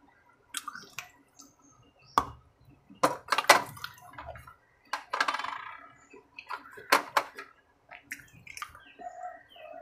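Close-up eating sounds: wet chewing, lip smacks and sharp mouth clicks in irregular bursts, loudest about three and five seconds in.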